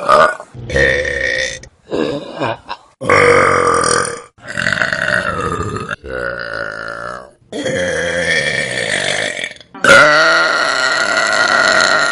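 A string of loud human burps, one after another, about eight of them. Most are long and drawn out, lasting one to two seconds, and they are split by sudden cuts.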